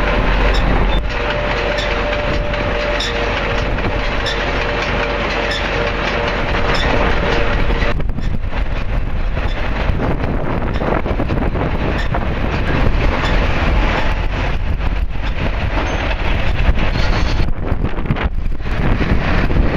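New Holland BR780A round baler running on tractor PTO power: a loud, steady mechanical clatter with a steady whine that drops out about eight seconds in.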